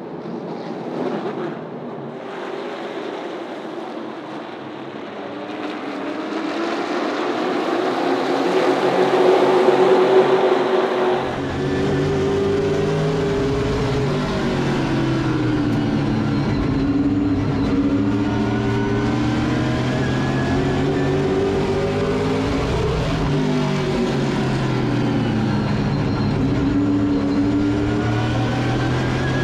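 Late model race cars on a short-track oval: the sound of cars at speed builds to a loud pass about ten seconds in, then gives way abruptly to a steady, loud race car engine whose pitch rises and falls again and again as it accelerates and lifts.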